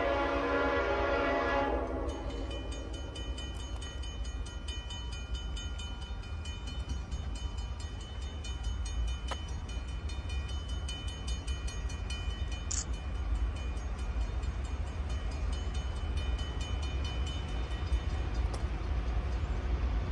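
A distant CSX freight locomotive's horn sounds and cuts off about two seconds in. After that come fainter steady ringing tones and a low rumble as the train draws nearer.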